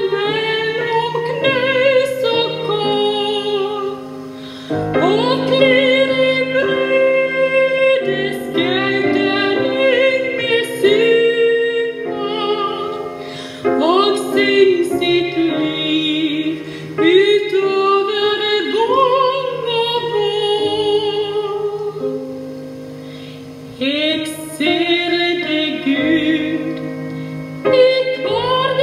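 A woman singing a slow Norwegian song in a classical style with vibrato, accompanied by piano, with brief softer pauses between phrases.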